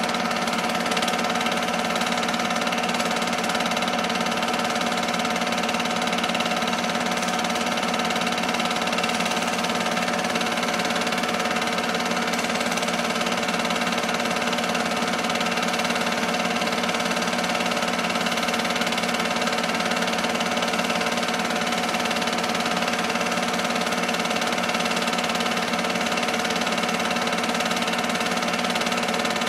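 8mm film-loop projector running steadily: an even mechanical drone from its motor and film mechanism, holding the same level throughout.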